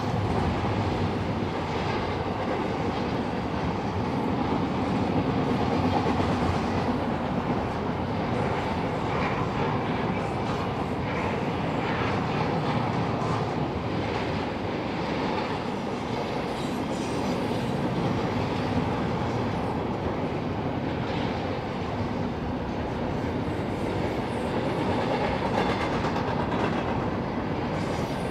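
Double-stack intermodal train's well cars rolling past on steel rails: a steady rolling rumble of wheels on track, with occasional sharper knocks.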